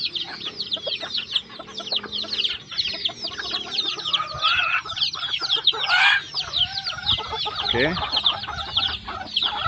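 A flock of chickens: chicks peeping continuously in rapid, high, falling chirps, with clucking and a few louder calls from older birds, the loudest about six seconds in.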